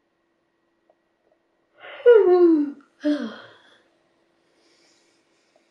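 A woman's wordless vocal sounds: a drawn-out sound with falling pitch about two seconds in, followed straight after by a shorter, softer one.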